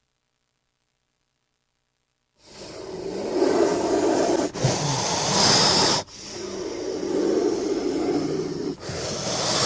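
Cobra hissing: a series of long, breathy hisses, each a few seconds long, starting about two and a half seconds in.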